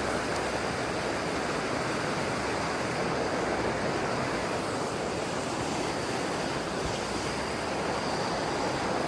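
River water rushing steadily over rocks, as at a small waterfall pouring into its pool.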